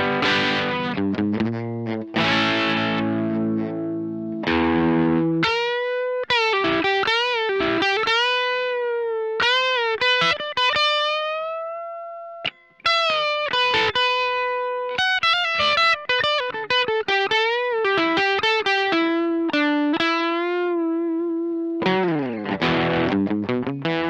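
Greg Bennett Royale RL-1 electric guitar being played: a few seconds of chords, then a single-note lead line with string bends and vibrato, including one long held note that fades, and chords again near the end.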